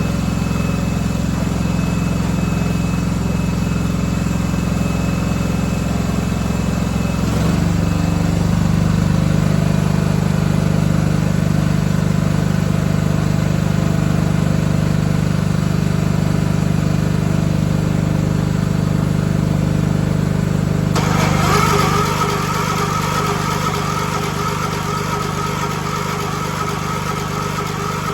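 1976 John Deere 300 garden tractor engine running steadily; its note shifts about seven seconds in, and a higher whirring noise joins it for the last several seconds.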